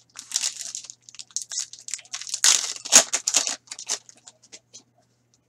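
A hockey card pack's wrapper being torn open and crinkled by hand, a dense run of crackling rips that is loudest about halfway through and stops a little before the end.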